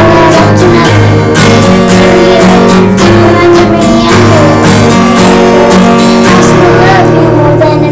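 Acoustic guitar strummed in a steady rhythm, ringing chords of a song.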